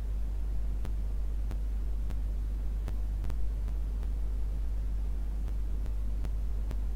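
Steady low electrical hum with faint background hiss from the recording, broken by several faint, irregularly spaced clicks.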